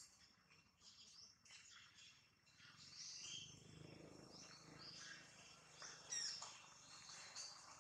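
Faint forest background of scattered bird chirps and insect calls, with one quick falling note about six seconds in.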